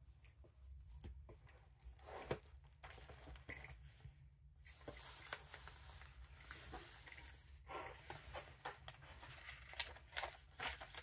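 Faint rustling of ribbon, lace and paper as a junk journal's tie closure is undone and its pages are opened and turned, with scattered light taps and one sharper click a couple of seconds in.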